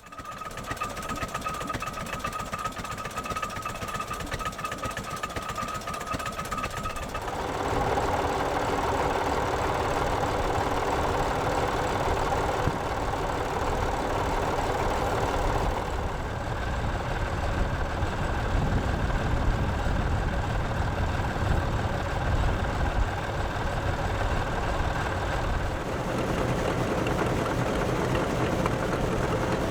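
Vintage tractor engines running steadily, the engine sound changing abruptly three times from one engine to another.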